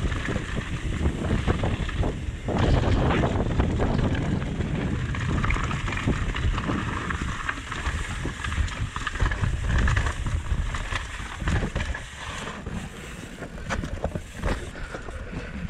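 Wind rushing over an action camera's microphone on a fast mountain-bike descent, with the tyres rolling over dirt, gravel and rock and the bike rattling and knocking irregularly over the rough ground.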